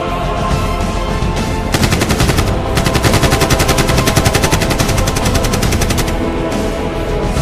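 Rapid automatic gunfire in two bursts, a short one about two seconds in and a longer one lasting about three seconds, over dramatic background music.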